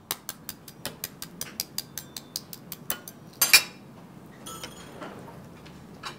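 Cutlery clinking against china plates and cups: a quick run of light clinks, about five a second, then one louder scrape a little past halfway, followed by a few softer clinks.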